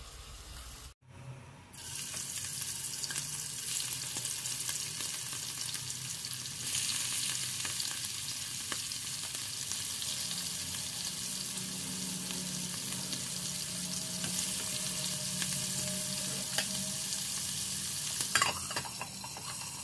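Whole prawns frying in hot oil in a nonstick wok: a steady sizzle with small crackling pops, starting about two seconds in after a brief gap. A few louder clicks come near the end.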